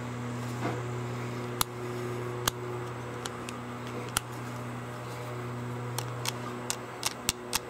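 About a dozen short, sharp metallic clicks from a jammed Boberg XR9-S pistol being worked by hand, irregularly spaced and coming closer together near the end, over a steady low hum. The pistol has a misfeed, and the magazine is stuck and will not come out.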